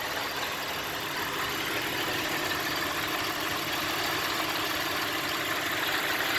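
2004 Cadillac SRX engine idling roughly, the idle fault the owner is demonstrating.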